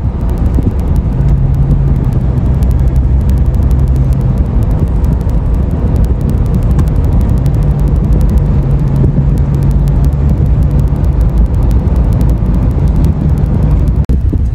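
Car travelling at highway speed, heard from inside the cabin: a steady drone of engine and road noise, with a low hum that comes and goes.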